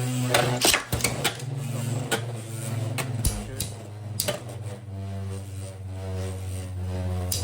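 Beyblade Burst spinning tops whirring in a plastic stadium after launch, a steady humming spin broken by sharp clacks as the tops strike each other and the stadium walls.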